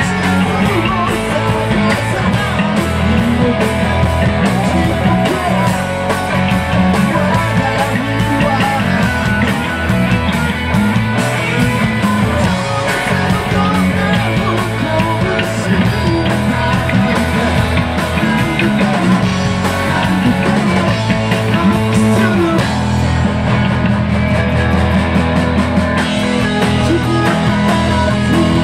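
Live rock band playing loud and without a break: electric bass, electric guitars and a drum kit.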